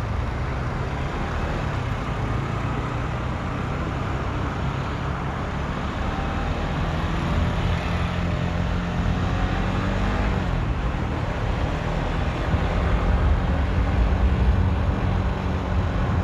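Motorcycle engine running at a steady cruising pace, heard from the rider's own bike with road and wind noise around it. It gets a little louder over the last few seconds.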